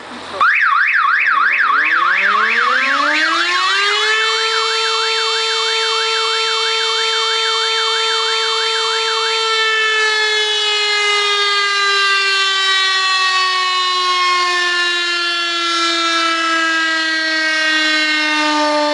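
1969 5.5 kW motor-driven rotor siren spinning up, its wail rising in pitch over about four seconds, then holding a steady note. From about ten seconds in it slowly falls in pitch as the rotor runs down. Over the first half a second fast-warbling high tone sounds alongside it and stops about nine and a half seconds in.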